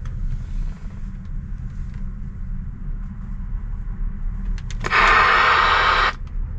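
Cobra CB radio being keyed while it flags an antenna warning: a few clicks, then about a second of loud hissing static from the radio's speaker near the end. A low, steady idling rumble from the truck runs underneath.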